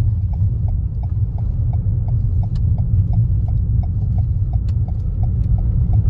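A car's turn-signal indicator ticking steadily, about three ticks a second, over the low rumble of the car's engine and its tyres on a cobblestone street, heard inside the cabin.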